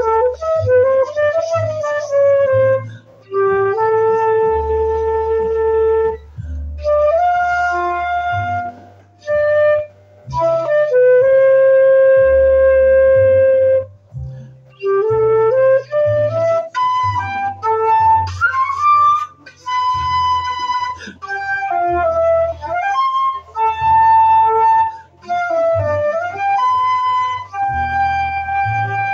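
Concert flute playing a melody, with long held notes and quicker runs of notes, over a low bass line.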